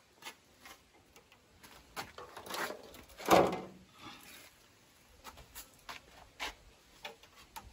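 Metal trays knocking and clattering as they are handled and stacked, with scattered light knocks and one louder clatter a little past three seconds in.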